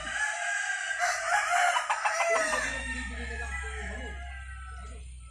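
A rooster crowing once, starting about a second in, a single call of roughly a second and a half.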